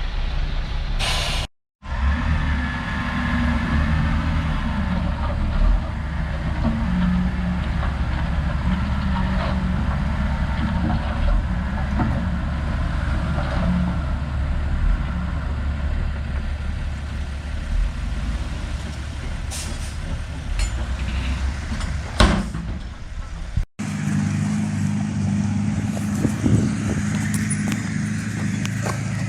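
Heavy diesel engine running steadily with a deep rumble, broken by two brief gaps where the engine note changes.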